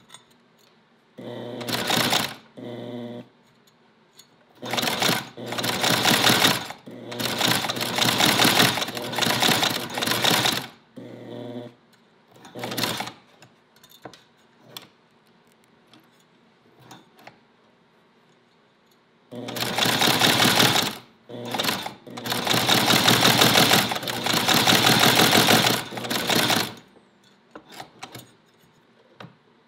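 Cobbler's leather sewing machine (shoe-patcher type) driven by a small foot-pedal sewing machine motor through a round belt, stitching leather in fast, loud clattering runs of a few seconds each as the pedal is pressed and released. There is a longer pause in the middle with only light clicks. The stitching action is aggressive, a little violent.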